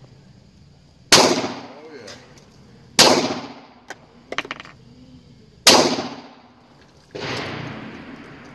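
Glock 22 pistol firing .40 S&W rounds one at a time, about two seconds apart. Each shot is a sharp crack with a tail that trails off for about half a second. A few short clanks come between the second and third shots. A fourth, longer blast follows near the end.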